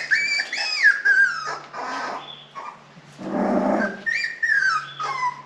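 Australian Shepherd puppy crying in a series of high-pitched whining cries that slide down in pitch, with a harsher, lower sound about three seconds in. The puppy is protesting being picked up and held.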